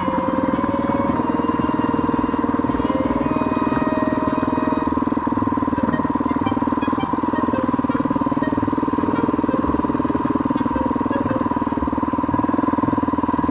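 Single-cylinder dual-sport motorcycle engine running at a steady pace while riding, its note holding level throughout.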